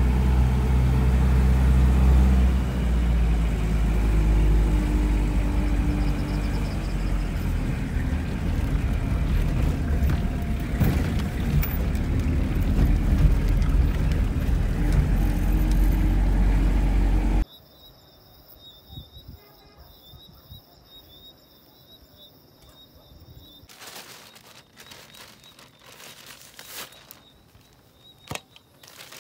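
Vehicle engine and road rumble heard from aboard while driving, heavy in the lows, with an engine note that shifts in pitch. It cuts off abruptly a little over halfway through, leaving a quiet background with a few faint knocks.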